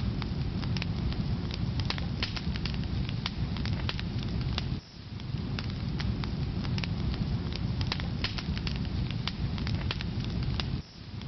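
Firewood burning in a fireplace: a steady low rumble of flames with frequent sharp crackles and pops. The sound drops out briefly twice, about five seconds in and near the end.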